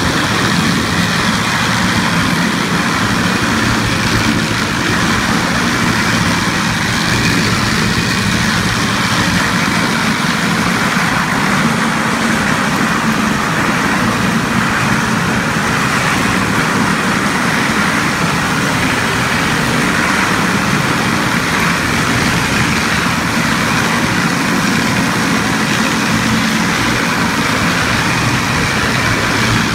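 Contec Omega 450 floor grinder running steadily, its rotating disc head grinding carpet glue and filler off a mastic asphalt floor: an even, unbroken grinding noise over the motor's hum.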